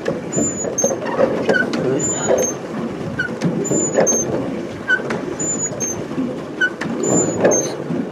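Pedal paddle boat being pedalled: the paddle wheel churns the water while the pedal drive gives a pair of short squeaks about every second and a half, once per turn of the pedals.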